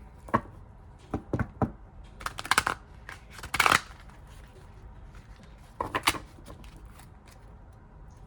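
Tarot cards being handled: a series of sharp taps and flicks, with a brief riffling rustle near the middle, as cards are shuffled and pulled from the deck.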